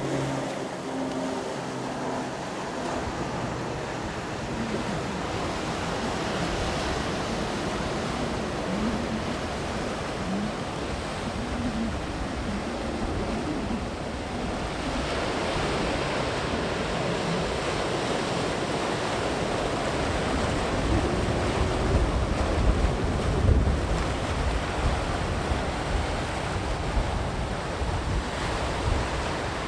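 Sea surf breaking and washing onto the shore. A continuous wash swells louder about halfway through, with heavy low rumbling surges in the second half.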